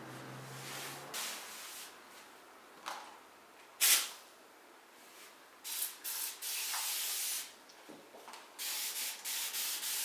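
Hands rubbing and smoothing a cotton shirt, then a small water spray bottle misting it in hissing bursts. One spray is held for over a second, and a quick run of short sprays comes near the end. The loudest sound is a short sharp burst about four seconds in.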